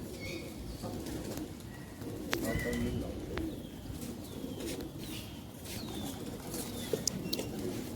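A flock of domestic pigeons cooing together in a dense, steady murmur, with short high chirps falling in pitch and a few sharp clicks scattered through.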